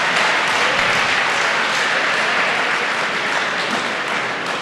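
Audience applauding, a dense steady clapping that begins to die down near the end.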